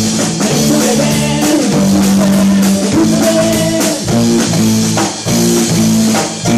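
Live rock band playing loudly: guitar chords held over a steady drum-kit beat.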